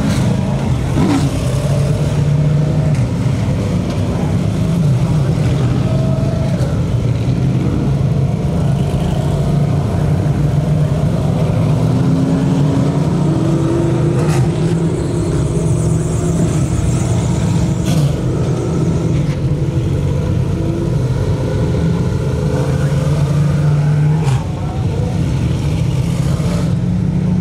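A pack of DIRTcar Sportsman dirt modified race cars with V8 engines running loud and steady as they pass one after another on warm-up laps. The engine pitch rises and falls as cars go by and pick up speed.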